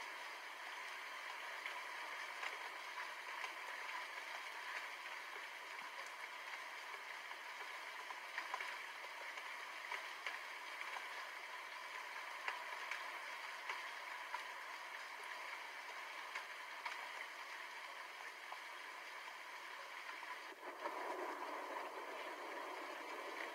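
Steady rainfall, a constant hiss with scattered drops pattering. About 21 s in the sound dips for a moment and comes back fuller and slightly louder.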